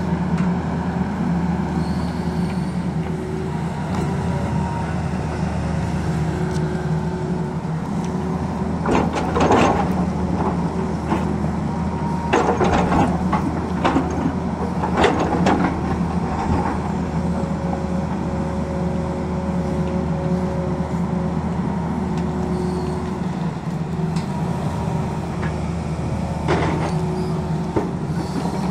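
Tata Hitachi tracked excavator's diesel engine running steadily under load while the bucket digs into rocky soil. Bursts of rock clattering and scraping against the steel bucket come in a cluster from about a third of the way in to past the middle, and once more near the end.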